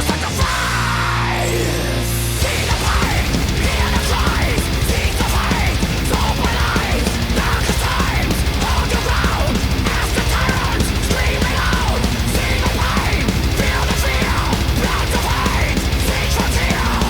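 Loud heavy metal music. A brief sparser passage of held notes gives way to the full band, with a fast, dense beat, about two seconds in.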